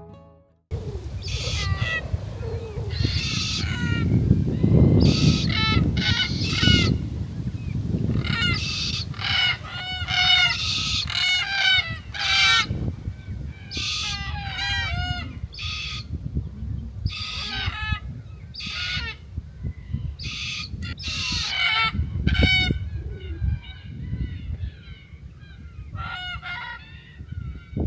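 A flock of birds calling, with many short, harsh, pitched cries in quick clusters, over a steady low rumble.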